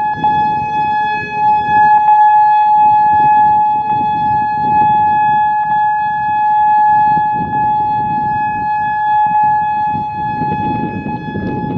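Whelen WPS-3000 rotating electronic siren sounding a steady single-tone alert. Its high, unwavering tone is punctuated every second or two by sharp pops, which the uploader puts down to its aging UV controls.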